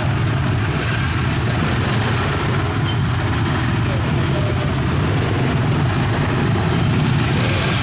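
Steady low rumble of jammed motorbike and scooter traffic, many small engines running close by at walking pace.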